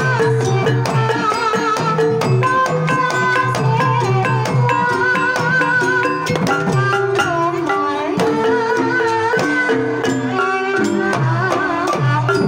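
Banyumasan gamelan playing a tayub gending: a kendang drum beats quick strokes over struck bronze gong pots and held gong tones, under a sinden's wavering sung melody.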